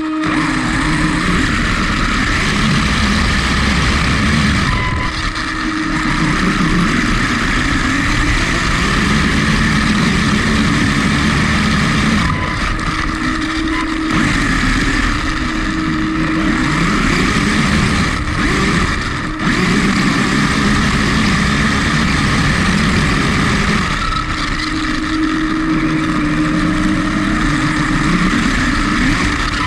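HSP XSTR Pro RC car's electric motor running on a 3-cell LiPo, its whine repeatedly rising and falling in pitch as the car speeds up and slows, over a steady hum.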